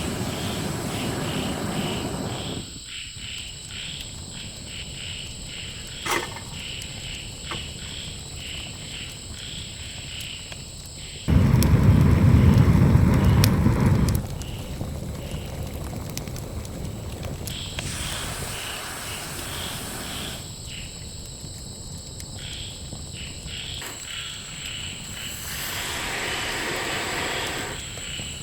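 Forest insects chirping in a steady pulsing rhythm, about three to four chirps a second, over a constant high-pitched insect whine. About halfway through, a louder rushing noise of unclear source rises for about three seconds, and there are a few sharp clicks earlier on.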